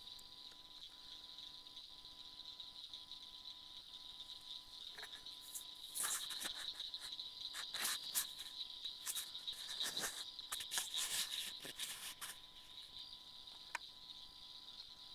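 Steady, high-pitched night chorus of calling insects, with a stretch of rustling and light knocks through the middle.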